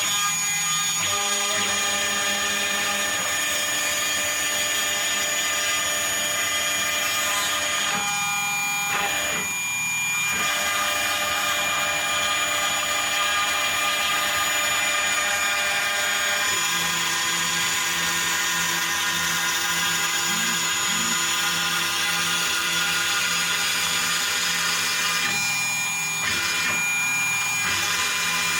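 Homemade CNC router running: the 1.5 kW VFD-driven spindle gives a steady high-pitched whine while the NEMA 23 stepper motors hum in tones that shift pitch and briefly drop out as the axes move and change direction.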